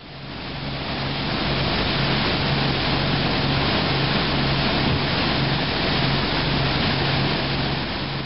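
A party fishing boat running at speed: the steady rushing hiss of its churning wake and of wind over the microphone, with the boat's engine droning low and slightly pulsing underneath. The rush swells up over the first second.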